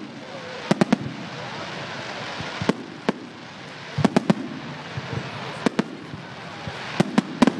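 Fireworks bursting overhead: a dozen or so sharp bangs, several in quick clusters of two or three, over a steady background hiss and murmur.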